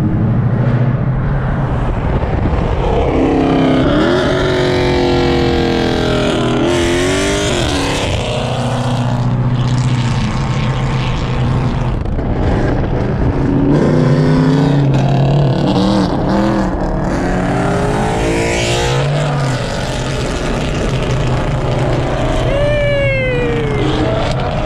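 Car engines revving hard and accelerating, their pitch climbing and dropping several times, heard from inside a moving car over steady road noise. Near the end one engine's pitch falls steeply.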